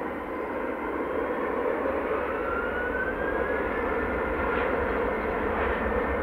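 Turkish Airlines Airbus A330-300's General Electric CF6-80E1 jet engines running as the airliner rolls along the ground. A steady dense rush has a faint whine in it that rises in pitch over a couple of seconds.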